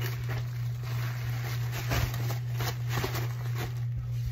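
Rustling and crinkling of a large absorbent pet pad being unfolded and shaken out by hand, in short irregular bursts over a steady low hum.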